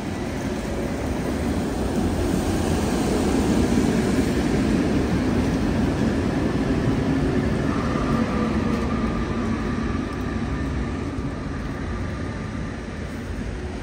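Old Tatra T3 tram set passing close on its rails: a rumble of wheels and running gear that builds over the first few seconds, holds, then slowly fades as it moves away. A faint high whine comes in about eight seconds in.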